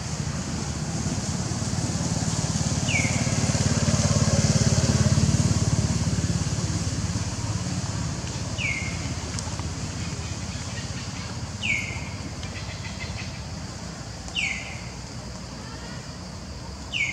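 Low, steady rumble of distant vehicle traffic that swells about four to six seconds in, over a constant high insect-like hiss. Short, high, falling chirps come every few seconds.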